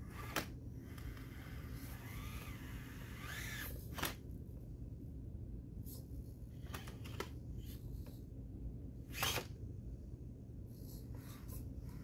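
Small electric motor and gears of an Axial SCX24 micro rock crawler whining as it revs, rising briefly a few seconds in, with sharp clicks and knocks as the truck works over the rocks, three of them louder.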